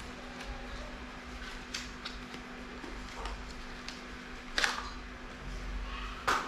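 A few sharp clicks and knocks as a plastic Rubik's cube is handled, the two loudest about four and a half and six seconds in, over a steady low hum.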